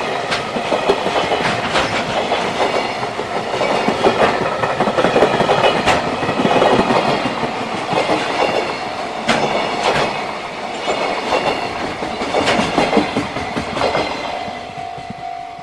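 Freight train's wagons rolling past, steel wheels clacking over the rail joints in a steady clatter that eases off near the end. A single steady tone starts in the last second.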